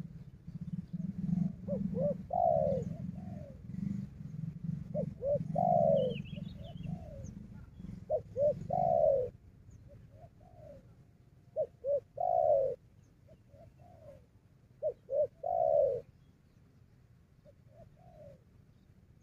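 Spotted dove cooing: about five calls several seconds apart, each two quick notes followed by a longer falling coo. A low hum runs under the first half and stops about nine seconds in.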